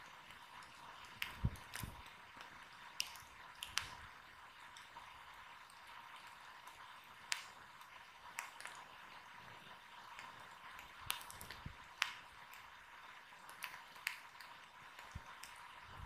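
Wood fire crackling softly, with irregular sharp pops and snaps over a faint hiss.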